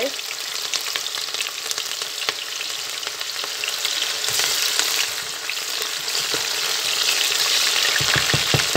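Chopped onion frying in hot vegetable oil in a metal pot: a steady sizzle full of fine crackles. Near the end a wooden spoon stirs it, with a few low knocks against the pot.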